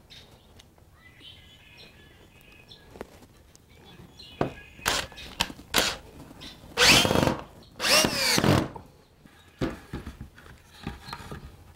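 Cordless drill driving 1-inch screws into wood: a few short bursts, then two longer runs a little past halfway, the motor whine rising and falling in pitch. A few knocks near the end.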